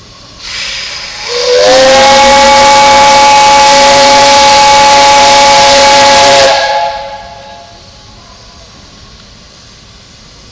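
Steam whistle of JNR Class 8620 locomotive No. 8630 blowing one long, loud blast. A rush of steam hiss comes first, then a chord of several tones that slides up as the whistle opens and holds steady for about five seconds before cutting off, leaving a short fading hiss.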